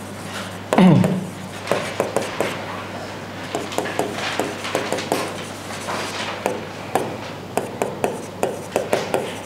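Writing sounds: a writing tool making short, irregular scratches and taps as the words of an accounting entry are written out.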